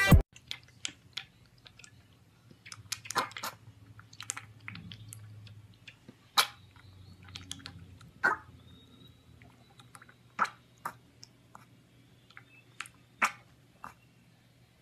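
A piglet slurping and lapping milk from a stainless steel bowl: irregular wet smacks and slurps, with a few louder ones about every two seconds.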